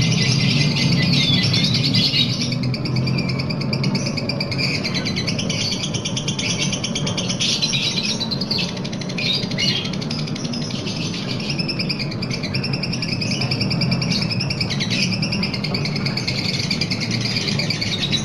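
Lovebird giving its long, continuous 'ngekek' song: a fast, shrill chatter of rapid high notes that runs on for many seconds with only brief breaks.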